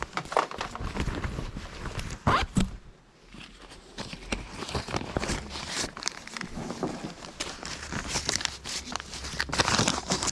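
Scattered rustling and light clicks of things being handled, with shuffling footsteps.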